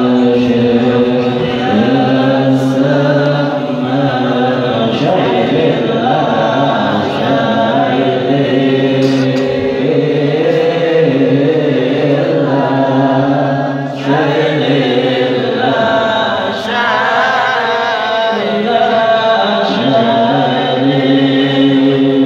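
A man's voice chanting a devotional syair in praise of Shaykh Samman into a microphone, in long held, wavering notes with short pauses for breath.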